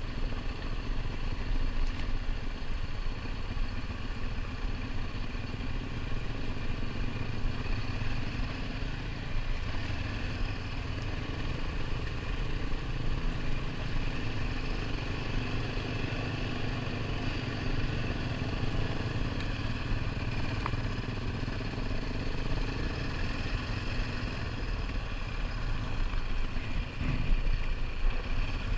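ATV engine running steadily while under way, with a brief knock near the end.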